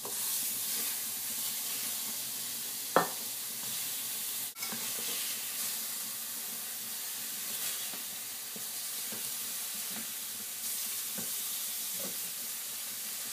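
Beef burger patties searing in hot olive oil in a stainless steel pan on high heat, sizzling steadily. A wooden spatula knocks and scrapes against the pan a few times, most sharply about three seconds in.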